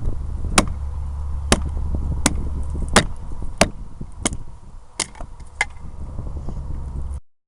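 A series of about eight sharp knocks or cracks, roughly one every two-thirds of a second, over a steady low rumble; the sound cuts off abruptly near the end.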